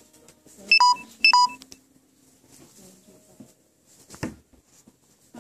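Squeaker inside a plush dog toy squeaking twice, about half a second apart, as a small dog bites it. A single short knock follows about four seconds in.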